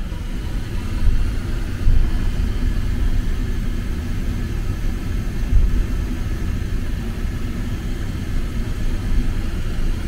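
Low, steady rumble inside a Boeing 777-300ER cabin as the airliner rolls on the ground after landing, with a few louder bumps from the wheels.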